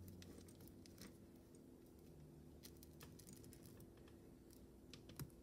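Near silence: room tone with a faint low steady hum and a few scattered faint clicks from a fine metal necklace chain being picked at to undo a knot.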